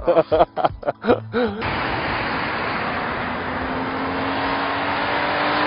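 Toyota 4Runner with a 4.0-litre six-cylinder engine driving along a road: steady tyre and engine noise that builds toward the end as the SUV draws closer, with a faint engine note slowly rising in pitch.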